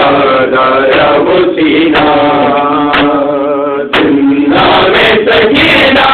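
Men chanting a Shia noha lament unaccompanied into a microphone: a lead male voice holds long wavering notes while other men's voices join in, with a short break about four seconds in. Sharp beats, likely hands striking chests in matam, sound through the chant.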